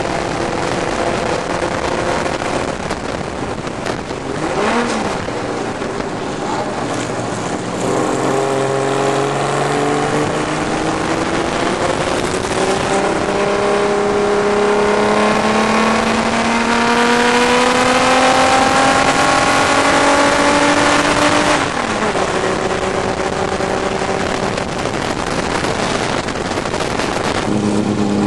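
Engine of the BMH Comic Book Special historic racing special heard from onboard, with wind rushing past. The engine holds a fairly steady note, then rises in one long pull lasting about thirteen seconds and drops away suddenly. Near the end the engine sound changes abruptly to a lower note.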